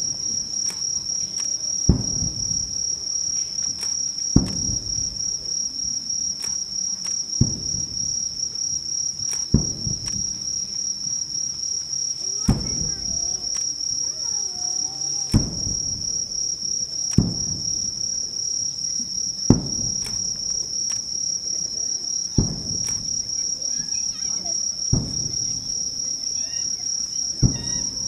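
Distant aerial firework shells bursting, a dull boom with a rumbling tail about every two to three seconds, eleven in all. Under them a steady high-pitched insect trill goes on without a break.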